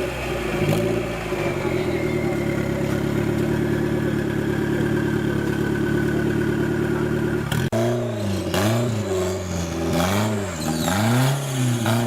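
Off-road 4x4 vehicle engine running at a steady drone, then after a sudden break revving up and down repeatedly, less than a second per rise and fall.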